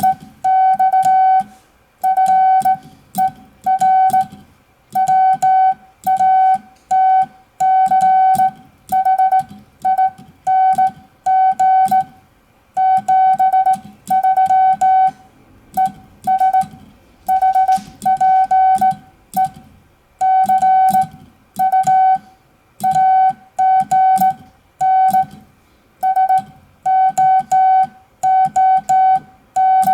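Morse code sent on a KN4YB semi-automatic bug key: a steady-pitched sidetone beeping out dits and dahs, the dits in quick even runs from the bug's vibrating arm, with the key's contacts clicking faintly underneath.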